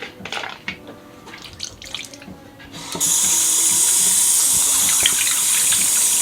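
A few light knocks and clicks, then about three seconds in a kitchen tap is turned on and water runs steadily into the sink.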